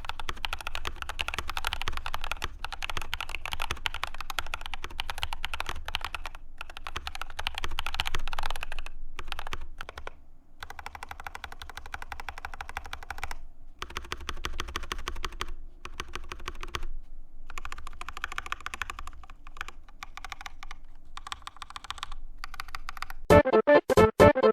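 Rapid typing on a custom-built mechanical keyboard that has a tape mod and plastic wrap lining its case to improve its sound: a dense run of key clacks with a few short pauses. Music comes in near the end.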